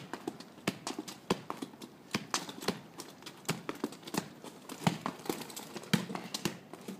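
Soccer ball touches and footsteps on pavement: a run of sharp, uneven taps, about two a second, as the ball is juggled and kicked along.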